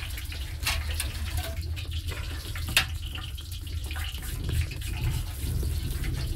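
Fire burning in a clay tandoor oven: a steady low rumble with scattered crackles, and one sharper crack a little before the middle.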